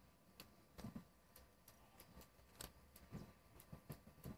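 Faint, irregular crunching clicks of a cat chewing dry kibble.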